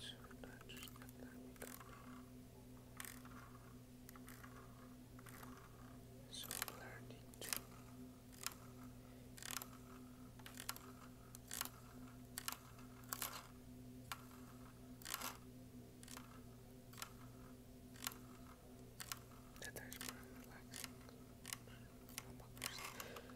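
Sharp plastic clicks and taps from fingers handling a brick-built toy car, about one a second, irregular, over a low steady hum.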